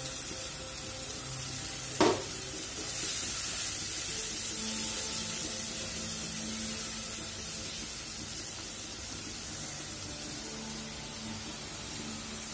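Wet spice paste poured into hot mustard oil and fried onions, sizzling steadily in the pan. A sharp knock comes about two seconds in, and the sizzle grows louder a second later, then slowly eases off.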